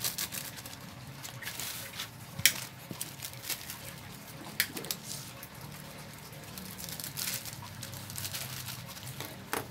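Small plastic sachets of bait additive crinkling and rustling as they are handled, with two sharp clicks a couple of seconds apart.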